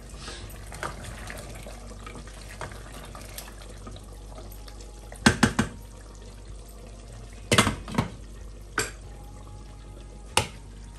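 Water running steadily from a kitchen tap into a sink, with a few sharp knocks, like dishes being handled, around the middle and near the end.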